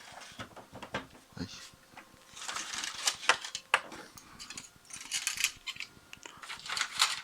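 Quick light clicking and metallic rattling from a Lenovo 7216 all-in-one laser printer in its scanner-error state, coming in two clusters, the first about two and a half seconds in and the second near the end.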